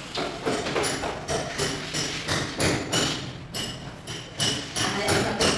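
A mallet tapping large floor tiles in a steady run of short knocks, about three a second, each with a brief ring, as the tiles are bedded down into the mortar.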